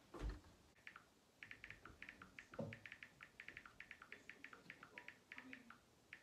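Faint, quick clicks of typing on a smartphone, several keypresses a second in irregular runs, with a soft thump just after the start.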